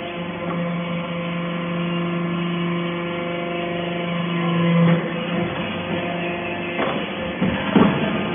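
Hydraulic power unit of a vertical scrap baler running with a steady hum that grows louder under load as the ram presses, then eases at about five seconds. A few metallic clanks follow near the end.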